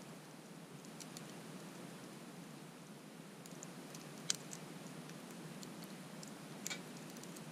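Wood campfire crackling: a low steady hiss with scattered sharp pops, the loudest a little over four seconds in and another a couple of seconds later.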